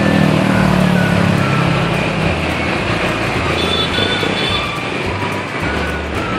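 Street traffic passing close by: motorcycles and a bus going past, with engine rumble strongest in the first couple of seconds, then lighter traffic noise.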